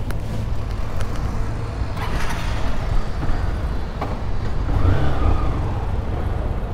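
Motorcycle engine running at idle, then pulling away, with a short rise in engine sound about five seconds in. A few light clicks over the rumble.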